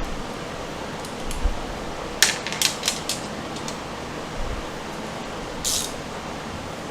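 Small hand-handled parts giving a quick run of about four light clicks a little over two seconds in and a short rustle near the end, over a steady background hiss.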